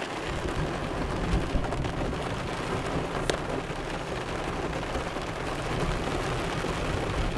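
Thunder rumbling low and steady while rain falls on the car, heard from inside the car.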